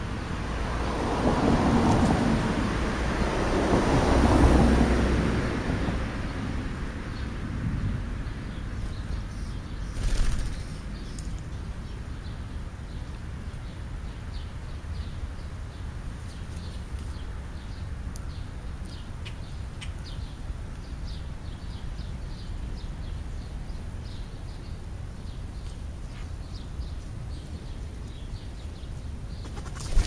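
A passing vehicle, swelling and fading over the first several seconds, over steady outdoor background noise, with a brief rustle about ten seconds in.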